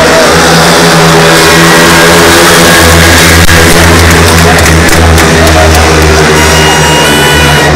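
Four 500 cc single-cylinder speedway motorcycles racing at full throttle, a loud steady engine drone that grows stronger about three seconds in.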